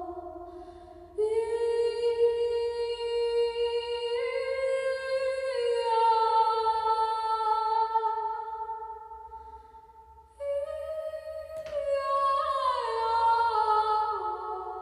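Wordless humming or a cappella singing in long held notes that step between pitches, in two phrases: one starting about a second in and fading away, the next starting about ten seconds in. A short click sounds shortly after the second phrase begins.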